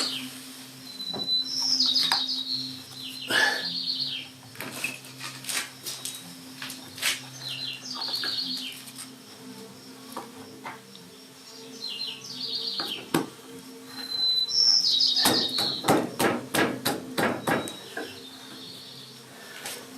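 A songbird singing about half a dozen short trilled phrases, several opening with a brief high whistle, spaced a few seconds apart. From about three-quarters of the way in, a quick series of sharp taps and knocks, with a faint steady low hum underneath.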